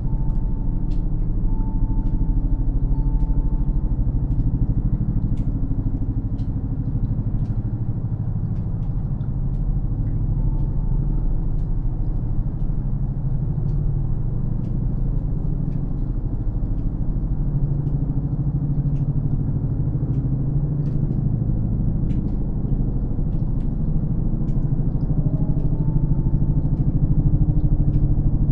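Steady low rumble of a CV-22 Osprey tiltrotor aircraft, growing a little louder near the end. Scattered sharp ticks of meltwater dripping from melting snow and a few faint wind chime notes sound over it.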